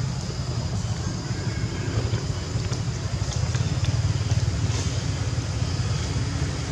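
Motorbike engine running steadily at idle: a constant low rumble.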